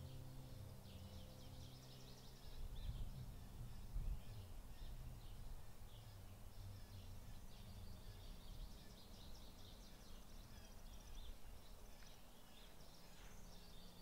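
Several small birds chirping and singing at once, their short calls overlapping throughout, over a faint low hum that fades out about two seconds in.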